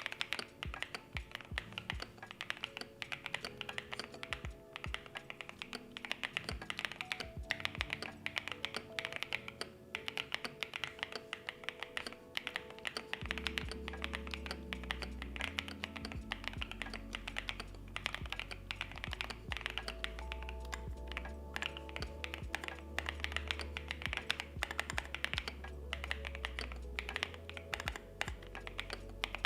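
Continuous typing on a CMM Studio Isabell60 mechanical keyboard with JWK Carol switches on an aluminium plate, damped with Poron and PE foams: a dense stream of quick keystroke clicks. Background music plays underneath, and its bass comes in about halfway through.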